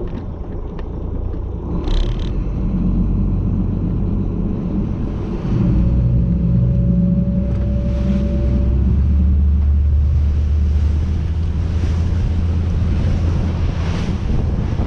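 Fishing boat's engine running with a steady low drone that steps up louder about five and a half seconds in, a thin whine riding on it for a few seconds from then.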